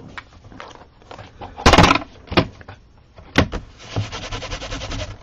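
Stamping supplies being handled on a craft table: a few knocks and clicks of hard plastic, a louder clatter about two seconds in, then about a second of quick rubbing near the end.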